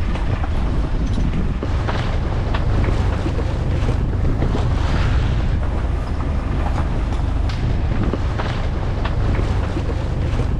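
Wind buffeting the microphone with a steady low rumble, over the hiss of water rushing along the hull of a sailboat under way.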